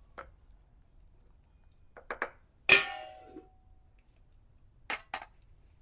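Metal kitchen utensils knocking and clinking against each other. One loud clang with a short ringing tone about three seconds in, and a few lighter knocks before and after it.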